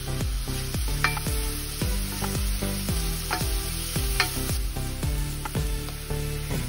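Diced red onion sizzling as it fries in oil in a pan, stirred with a wooden spoon, with a couple of sharp ticks from the spoon or spitting oil. Background music with a steady beat plays throughout.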